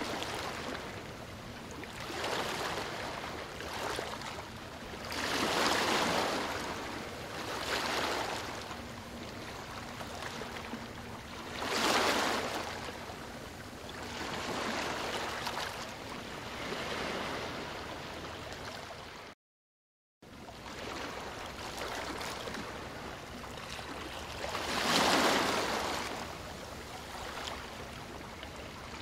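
Small sea waves washing and sloshing against a rock outcrop and around the microphone near the water surface, rising and falling in swells a few seconds apart. The sound cuts out completely for about a second some two-thirds of the way through.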